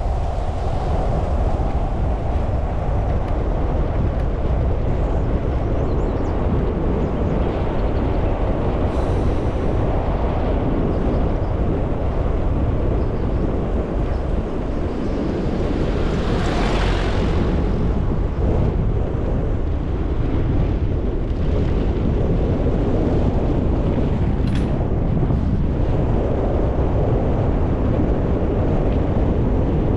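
Wind buffeting the microphone in a steady low rumble, with a brief hissing swell about seventeen seconds in.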